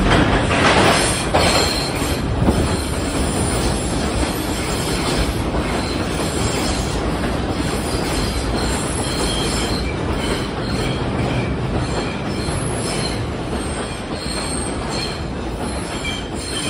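R142 subway train running into the station at speed and passing close by: a loud, steady rumble of steel wheels on rail, with a few clacks in the first seconds and a high wheel squeal coming and going through the rest.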